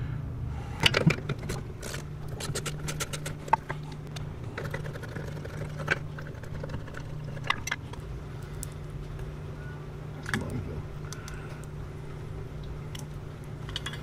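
Sharp clicks and small plastic-and-metal handling noises from pliers and a plastic safety-sensor bracket, with a quick run of clicks about a second in as a wire connector is squeezed shut. A steady low hum runs underneath.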